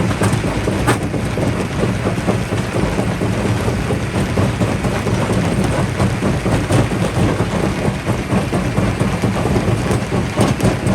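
Jaw rock crusher running: a steady low drone from the machine under a dense, irregular crackling and rattling of rocks being broken, with a sharper crack about a second in.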